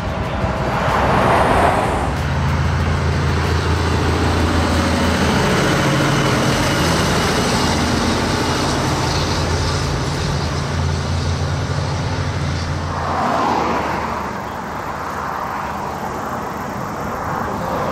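Heavy diesel trucks going by on an open road. A truck passes with a rush of tyre and engine noise about a second in. A heavy truck's diesel engine then drones steadily and low until another truck passes about two-thirds of the way through, and lighter road noise follows.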